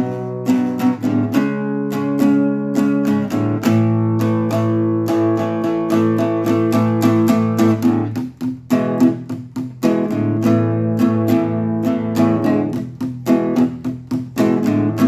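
Background music: acoustic guitar playing a continuous run of plucked notes.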